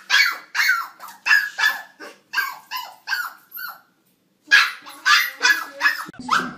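A small puppy yapping rapidly at its own reflection in a mirror: short, high-pitched barks about three a second, breaking off for a moment about four seconds in, then starting again.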